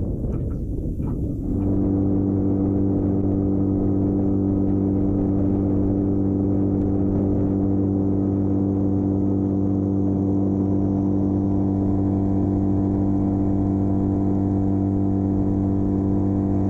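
Boat's outboard motor running at a steady speed with the boat under way, a constant even hum that sets in about a second and a half in, after a short stretch of wind noise.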